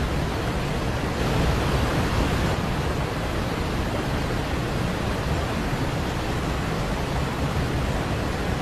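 Steady pink-noise hiss: an even, unbroken rushing noise spread across the whole range, growing slightly louder between about one and two and a half seconds in.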